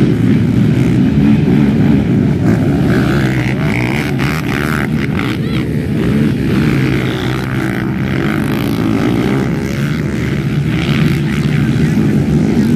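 A pack of racing ATVs (four-wheeler quads) running hard together, their engines merging into one steady, loud drone that eases slightly as the pack moves off.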